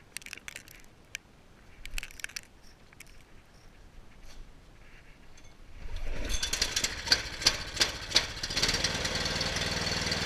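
A few faint clicks and knocks of handling, then about six seconds in the engine of a Toro Power Max two-stage snowblower starts and runs with rapid, even firing.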